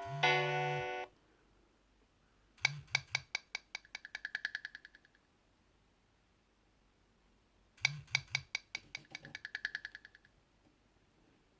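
Nokia 6230 ringtone from the phone's speaker: a quick run of short, plucked-sounding notes ending in a fast trill, heard twice about five seconds apart. Each ring opens with three short low buzzes from the vibrate alert. A different, sustained ringtone cuts off about a second in.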